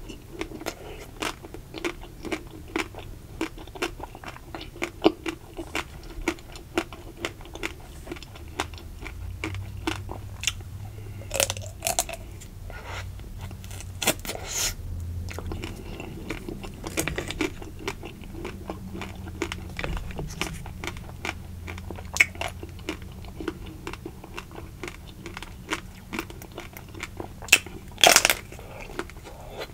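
Close-miked eating of ruby-cocoa-coated ice cream bars: the thin chocolate shell cracking crisply at each bite, with chewing in between. The loudest bites come about five seconds in, around the middle, and near the end.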